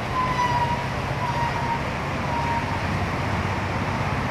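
Street traffic noise: vehicle engines running and a steady hum of road noise. In the first half a few short, slightly falling high tones repeat about once a second and fade away.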